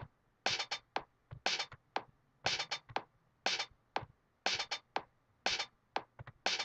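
Audiotool's Machiniste drum machine playing a looped one-shot drum pattern: short, sharp, hissy hits in a figure that repeats about once a second.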